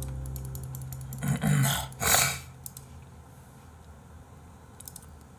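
A man's short, low, throaty vocal sound, then a sharp breathy burst about two seconds in.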